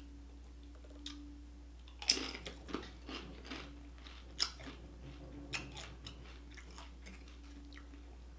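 A tortilla chip dipped in queso, bitten and chewed close to the microphone: one crisp crunch about two seconds in, then a run of smaller crunches that thin out over the next few seconds.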